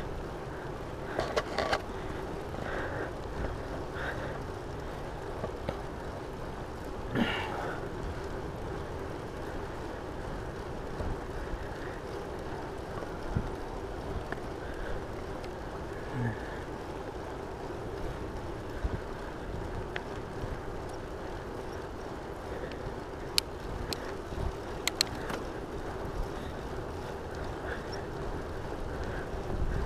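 Rad Rover electric fat-tire bike riding along a paved trail: a steady rolling noise of the tyres on asphalt with a steady hum underneath. A few sharp clicks and rattles come from the bike, one about seven seconds in and a cluster around twenty-four to twenty-five seconds.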